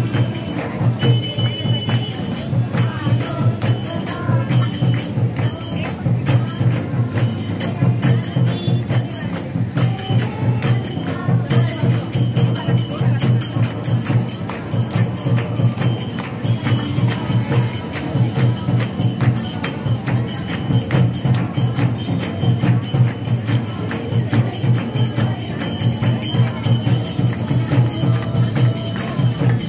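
Devotional aarti music with a fast, steady beat of jingling percussion over a pulsing low rhythm.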